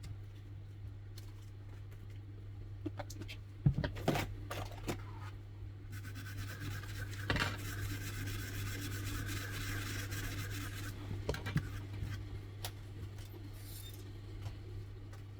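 Small metal tools clicking and clinking on a repair bench, with a steady hiss lasting about five seconds in the middle, over a constant low hum.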